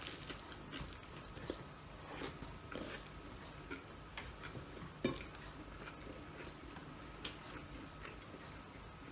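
A person eating rice by hand: faint chewing and soft scattered taps and clicks of fingers working rice on a plate, with a sharper click about five seconds in.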